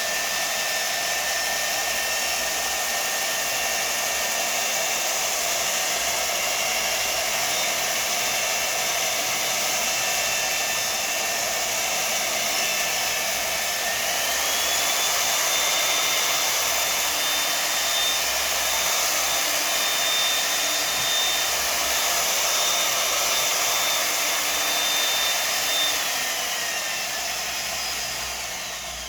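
A small handheld power tool running steadily, spinning a cleaning rod with polishing paste inside an airsoft inner barrel. Its whine rises in pitch about halfway through, holds, drops back, and the tool winds down at the end.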